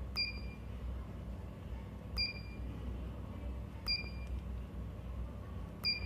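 Four short high beeps from the ESP32 board's small buzzer, about two seconds apart, each starting with a slight click: the buzzer's feedback signal for a rotary-encoder input.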